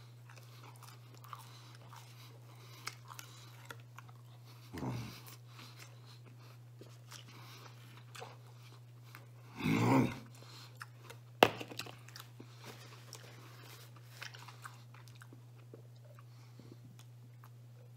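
Close-up chewing and biting of pizza crust, with soft wet mouth clicks and crunches. There is a louder burst about ten seconds in, a sharp click just after it, and a steady low hum underneath.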